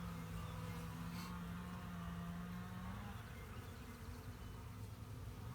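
Honeybees buzzing around an opened hive: one steady, close buzz that drops away about three seconds in, over a fainter hum of the colony.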